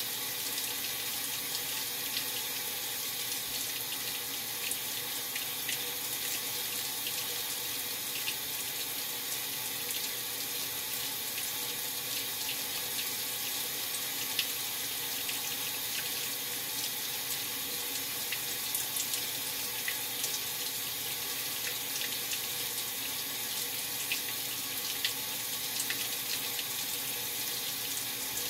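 Maytag Centennial top-load washer filling its tub: a steady rush of water pouring in, with small scattered ticks and splashes.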